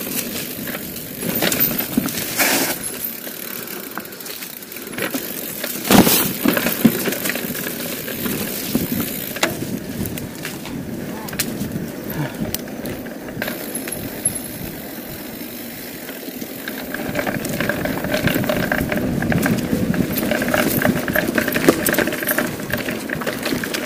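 Mountain bike ridden fast on a dirt trail: tyres rolling over dirt and the bike rattling, with sharp knocks over bumps about two and a half and six seconds in. The noise grows louder from about two thirds of the way in.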